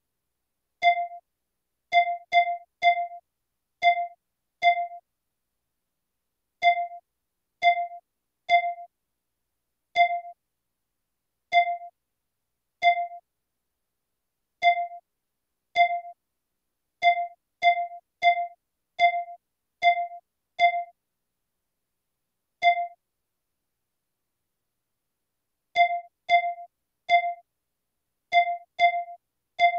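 A short single-note electronic ding, repeated about 27 times at irregular intervals with silence between, each a clear tone that dies away quickly. Each ding marks one more storm added to the on-screen storm count.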